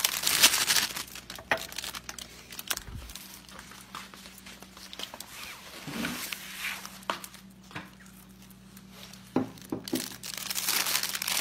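Crinkling and rustling as paper plates and food are handled close to the phone, with scattered knocks and handling noise. The crinkling is thickest at the start and again near the end, over a faint low hum.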